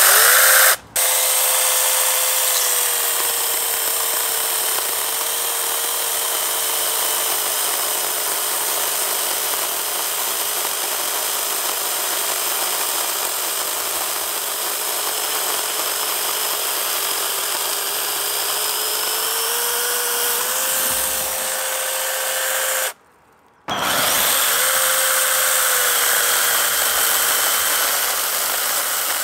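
Stonecho battery-powered mini electric chainsaw running and cutting through tree branches: a steady motor whine that sags slightly in pitch while the chain is in the wood and rises again as it frees. It stops briefly about a second in and again about two-thirds through, then restarts.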